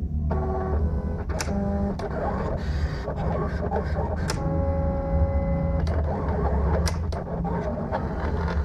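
Silhouette Portrait cutting plotter cutting a printed sticker sheet: its stepper motors whine in steady tones that change pitch as the blade carriage and feed rollers move, over a low hum, with several sharp clicks.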